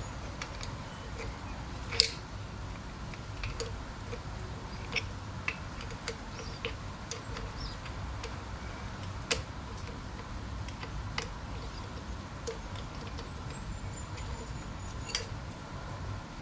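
Scattered metallic clicks and clinks of two spanners working the top-mount nut off a rear shock absorber, with two sharper knocks about two seconds in and about nine seconds in, over a steady low background noise.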